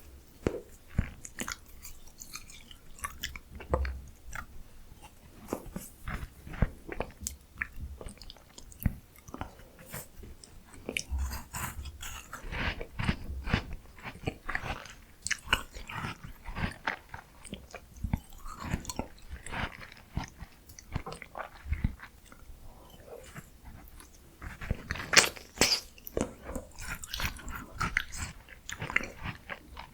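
Close-miked chewing and biting of miniature ice cream: a steady, irregular run of crunchy bites and wet mouth clicks, with a louder cluster of crunches near the end.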